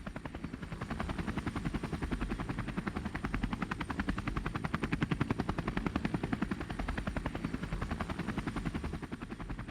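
Helicopter rotor sound effect: a fast, even chopping that grows louder toward the middle and eases a little near the end.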